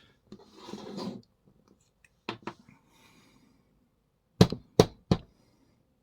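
Parts of a disassembled American 1100 padlock being handled on a work surface: a short scrape, two light clicks, then three sharp knocks in quick succession near the end.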